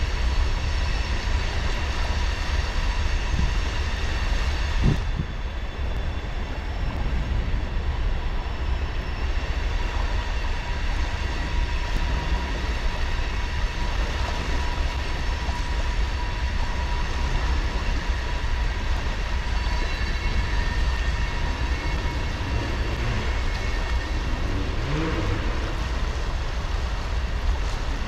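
Steady rushing of a shallow creek running over gravel and rocks, with a deep rumble underneath.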